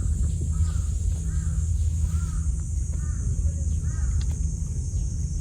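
A crow cawing repeatedly, about half a dozen short caws, over a steady low rumble.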